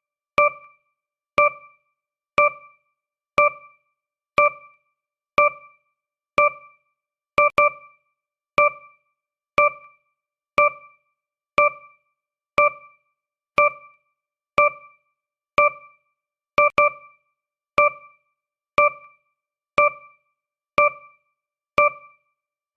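Countdown timer sound effect: a short electronic ping, like an electric-piano note, sounding once a second and dying away quickly. Twice, two pings come close together.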